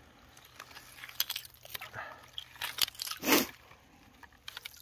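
Wire-mesh ice skimmer scooping slush and broken ice out of a fishing hole: scattered crunches and clicks, with one louder crunch about three seconds in.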